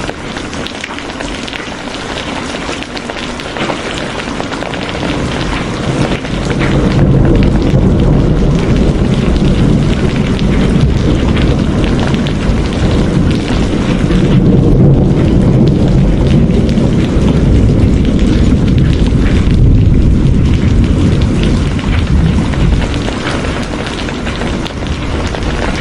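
Steady rain with rolling thunder: a low rumble builds about six seconds in, stays loud, and fades near the end.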